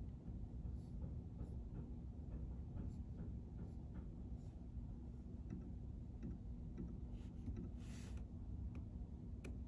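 Quiet room tone with a steady low hum and rumble, a few faint scattered clicks, and a short rustle about eight seconds in; the typing heard around it pauses here.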